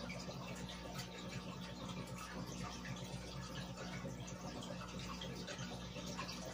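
Aquarium air bubbling: a steady stream of air bubbles rising from the sponge filters and fizzing and popping at the water surface, over a steady low hum.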